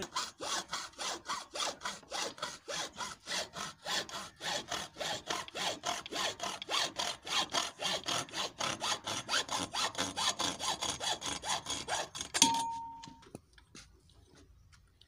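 Hand hacksaw sawing with quick, even back-and-forth strokes, about five a second. About twelve seconds in the strokes stop with a sharp clack and a short ringing tone.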